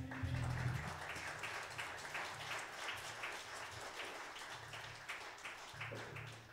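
Light applause from a small group of people, a steady patter of claps that slowly fades out.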